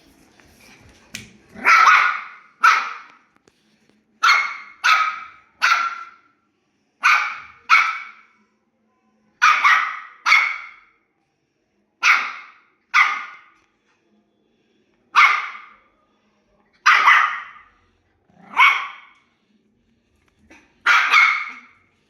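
Dog barking repeatedly, some fifteen barks, mostly in pairs a little under a second apart with pauses of a second or two between them.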